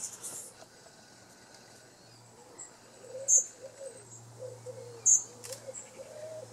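Songbirds giving short, high chirps, two loud ones about two seconds apart in the second half, while a low, wavering cooing carries on in the background from about halfway through.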